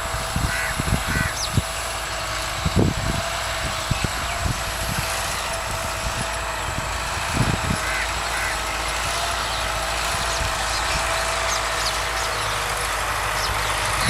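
Farm tractor engine running steadily while ploughing, a constant hum under a wide haze of noise, with scattered low thumps and a few short, faint bird calls.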